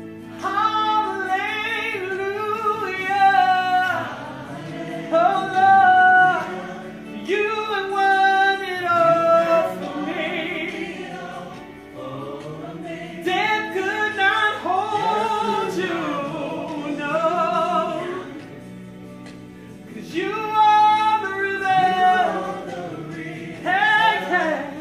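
Woman singing a gospel praise song in phrases of a few seconds with short breaks between, over steady held chords underneath.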